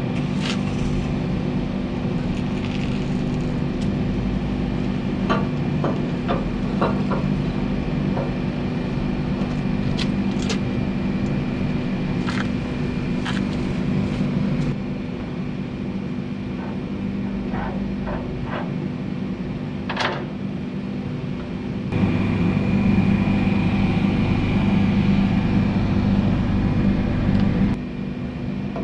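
A steady mechanical hum with scattered clicks and knocks. It gets louder for about six seconds near the end, with a high whine added.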